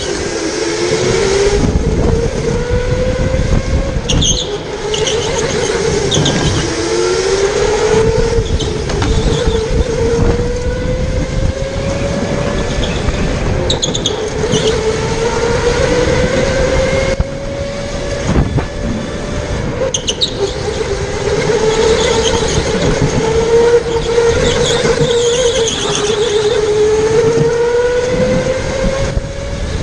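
Electric go-kart motor whining, rising in pitch as the kart accelerates down each straight and dropping back into the corners, again and again. Short high tyre squeals in some turns, and rumbling wind and vibration on the on-board camera.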